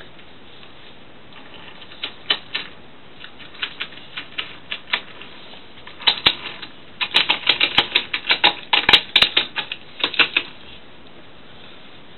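Irregular hard clicks and clacks of toy train cars being handled. A few scattered clicks come first, then a quick dense run of clacks from about six seconds in to about ten seconds in.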